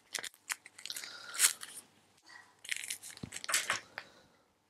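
Crackly rustling and tearing as a pinch of gold Lite Brite synthetic dubbing is pulled from its plastic packet, in several short bouts that fade out near the end.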